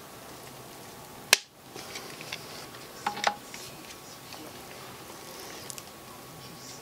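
Torque screwdriver tightening a rifle's action screws into the stock: a sharp click about a second in, a few smaller clicks a couple of seconds later and light scattered ticks over quiet room tone.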